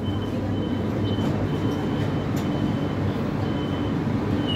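Madrid Metro series 7000 train heard from inside the carriage: a steady low running rumble, with faint short high beeps repeating. Near the end a louder steady high beep starts.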